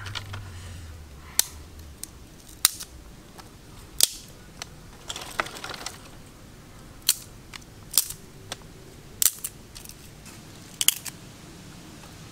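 Thin dry twigs snapped by hand for kindling: a series of about seven sharp cracks a second or two apart, with a short rustle of sticks about five seconds in.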